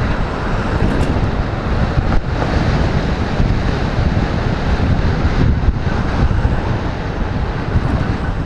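Heavy wind noise buffeting a helmet-mounted microphone on a moving motorcycle, a loud steady rumble with the bike's running noise underneath.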